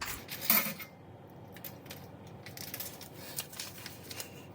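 Scattered light metallic clicks and taps, the loudest about half a second in, as a Minimoog's metal bellcrank bar is handled and clamped into a power drill's chuck. The drill is not running.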